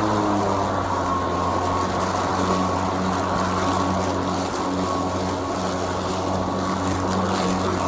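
Greenworks 80V brushless cordless push mower running while cutting grass: a steady motor hum with a thin high whine, dipping slightly in pitch about half a second in.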